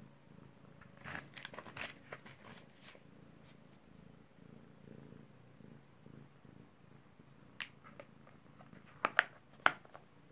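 A cat purring steadily while it crunches hard supplement tablets, with a run of short crunches about a second in. Near the end come a few loud, sharp clicks.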